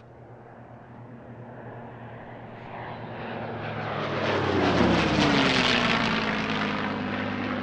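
A P-51D Mustang's Packard Merlin V12 engine in a low flypast. It grows louder, peaks about five seconds in, and the engine note drops in pitch as the aircraft passes.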